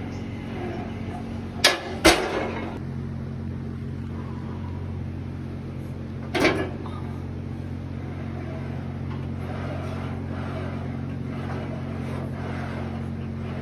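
Loaded barbell and its iron plates clanking against the metal rack during an incline bench press set: two sharp clanks about two seconds in, the second ringing briefly, and a third about six and a half seconds in. A steady low hum runs underneath.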